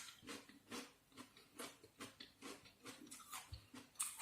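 Faint chewing: soft, quick mouth ticks about two or three times a second.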